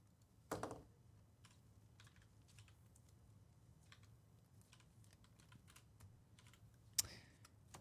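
Faint typing on a computer keyboard: scattered, irregular key clicks, with two louder short knocks, one about half a second in and one near the end.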